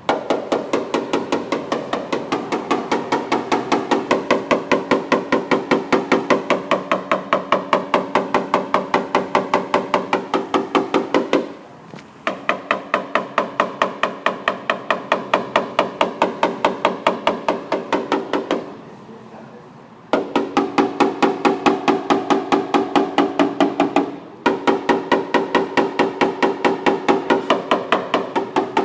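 Fast, even hammer taps on a car's sheet-metal body panel, about three a second, each with a short ringing tone from the panel. The taps come in three long runs broken by brief pauses, as in tapping down during paintless dent repair.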